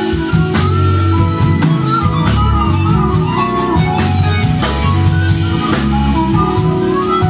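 Live jazz band playing: two harmonicas carry a gliding melody over electric bass, electric guitar and drum kit.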